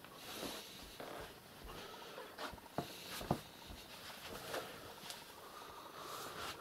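Faint rustling and scuffling of a mother cat and her kittens moving on a carpet, with a few soft clicks around the middle.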